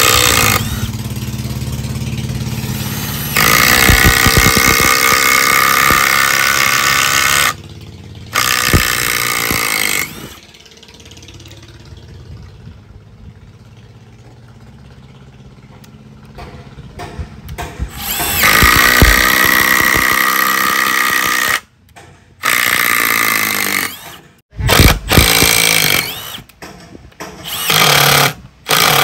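Milwaukee M12 brushless 1/4-inch hex impact driver driving long wood screws into a wooden block, in several runs of a few seconds each, the motor winding up at the start of each. Near the end it runs in a string of short bursts.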